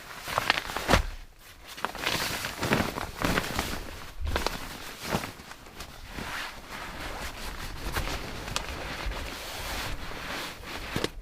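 Footsteps of a person walking, boots scuffing and knocking on rock, twigs and grass at an uneven pace, with rustling between steps.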